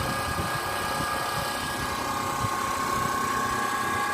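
Certified open-frame portable generator running steadily: an even engine hum with a constant high whine.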